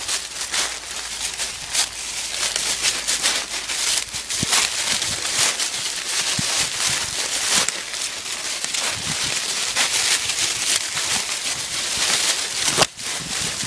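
Dry leaf litter crackling and rustling under the feet of a small dog and the person walking with it through brush. There is one sharp crack near the end.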